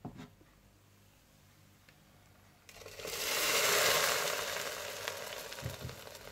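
Hot desi ghee tadka with cumin, whole red chillies and ginger-garlic poured into cooked masoor dal: a sudden loud sizzle about three seconds in that peaks and slowly dies down. A light knock at the start.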